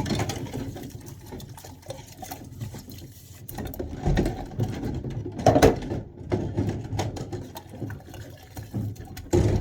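Washing up by hand in a sink: water sloshing, with pots and dishes knocking together and a louder clatter about halfway through.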